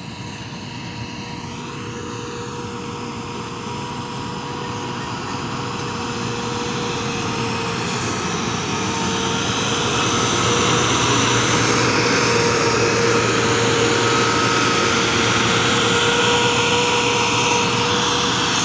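Diesel engine of an MG 330 motor grader running steadily under load as its blade pushes soil, with a steady whine in the engine note. It grows louder over the first ten seconds as the machine comes close, then holds steady.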